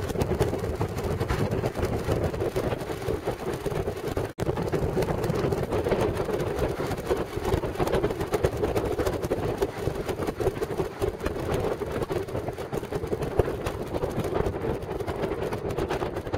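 Steady road and engine noise of a moving car, heard from inside the cabin, with one very brief dropout about four seconds in.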